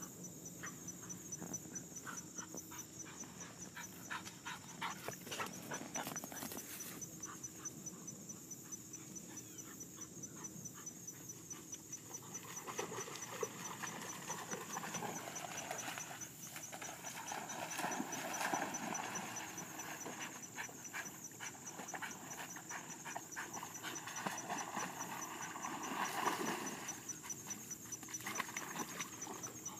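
A German Wirehaired Pointer (Deutsch Drahthaar) panting hard in quick, even breaths while swimming in a pond.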